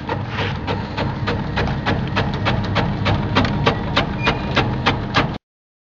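Electric kerupuk slicing machine running: a steady motor hum with a sharp tick about three times a second from the cutting blade as it slices the cracker dough, the ticks growing louder toward the end. The sound cuts off suddenly near the end.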